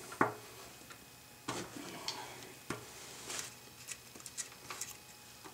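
Old toothbrush scrubbing oily grime around a lawn mower's crankcase drain plug: a series of short, irregular scrapes and ticks.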